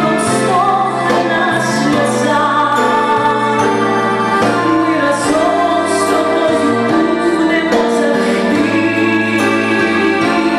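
A woman singing a pop song into a microphone over amplified backing music with a bass line and percussion.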